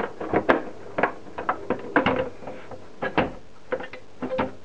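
Irregular sharp clicks and knocks of a 3Com Switch 4228G's casing being handled, a dozen or so, as its cover is pressed back onto the chassis and the unit is turned over.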